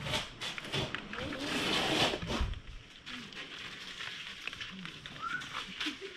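Stray cats at a shared feeding spot: about a second in, a cat gives a loud hiss lasting about a second, and near the end there is a short meow.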